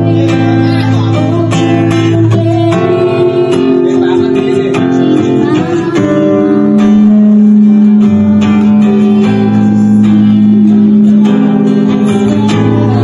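A Cort cutaway acoustic guitar is strummed and picked live through a microphone, with a woman singing over it; one note is held for several seconds near the middle.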